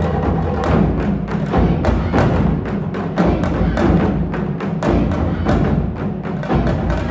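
Japanese taiko drums played by an ensemble: a dense, continuous run of heavy drum strokes, several a second.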